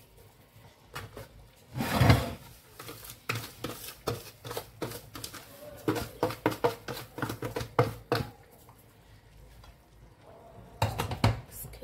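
Handling noise from a metal couscoussier steamer basket filled with oiled semolina: a run of light clicks and knocks as hands work the grain and a plastic bowl is moved, with one louder knock about two seconds in. A few more knocks near the end as the basket is picked up.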